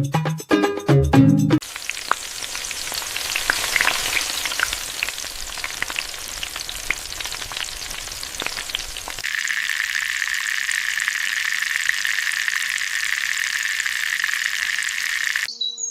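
Food frying in hot oil, sizzling with scattered crackles. About nine seconds in the sizzle changes to a steadier, higher hiss, and it cuts off shortly before the end.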